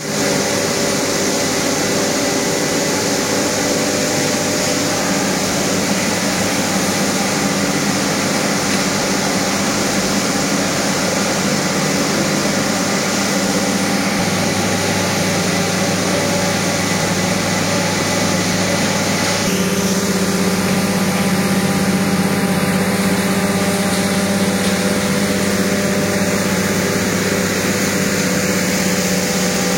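A machine running steadily: a loud, even drone with humming tones that shift slightly about 14 and 20 seconds in.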